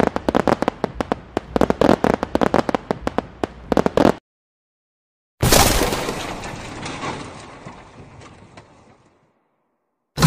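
A string of firecrackers going off, a rapid run of sharp cracks several a second, stopping abruptly after about four seconds. A second later a sudden loud crash sounds and dies away over about three and a half seconds, and a sharp hit comes near the end.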